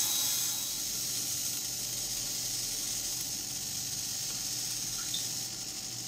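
Small motor and rubber belt drive turning a robot's spinning range-finder head, a steady whirring hiss.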